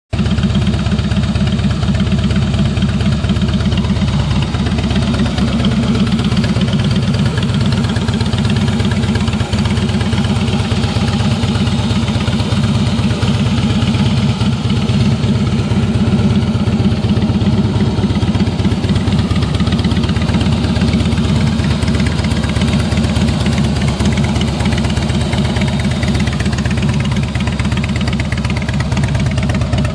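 2008 Harley-Davidson Heritage Softail Classic's air-cooled Twin Cam 96 V-twin idling steadily through Vance & Hines aftermarket pipes, with a loud, pulsing exhaust beat.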